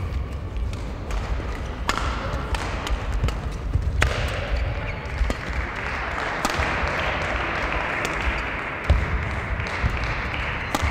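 Badminton play in a large sports hall: sharp racket strikes on shuttlecocks and thudding footfalls on the court floor, echoing. A steady hiss comes up about four seconds in.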